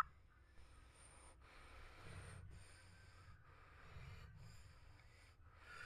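Near silence, with only a faint soft hiss.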